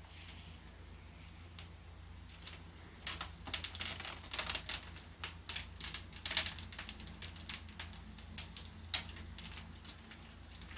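Protective plastic film being peeled off a newly built PC, crackling and ticking as the adhesive lets go. A few soft clicks at first, then dense crackling from about three seconds in.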